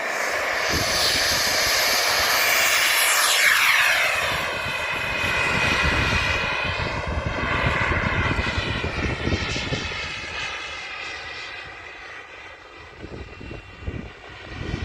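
Model gas-turbine engine of a radio-controlled jet whining in flight, with a falling pitch as it passes close about three seconds in. The whine then eases off somewhat and swells again near the end.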